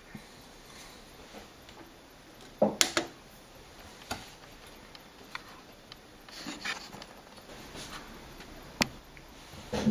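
Quiet room tone broken by a handful of short knocks and clicks: two close together about three seconds in, then single ones later, with a soft rustle in between.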